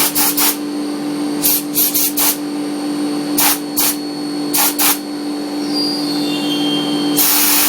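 CNC mill spindle running with a steady hum while an eighth-inch end mill cuts slots in a titanium pen tube. Short hisses of compressed air come in small groups every second or so, and the air blast turns on continuously about seven seconds in.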